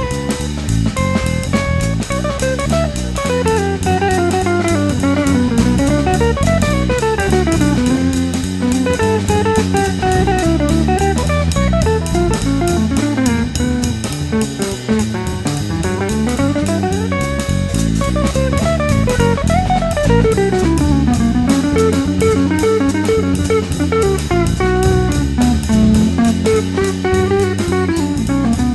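Instrumental background music with a steady beat and a quick melody running up and down.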